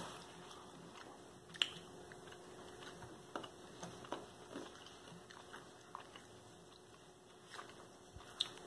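Faint chewing of beef jerky, with a few short mouth clicks and smacks scattered through it.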